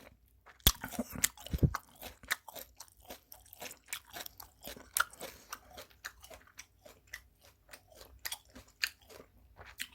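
A person chewing close to the microphone, with irregular wet crunching and clicking: eating bone-in sliced raw rockfish wrapped in kimchi.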